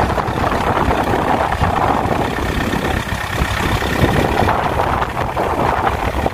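Farm tractor's diesel engine running hard under load, stuck in a flooded rice paddy, with its steel cage wheels churning through mud and water.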